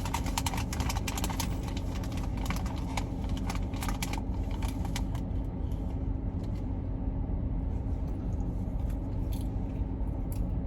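Quick light clicks and small rattles, dense for about the first five seconds and then only now and again, over a steady low rumble from inside a car.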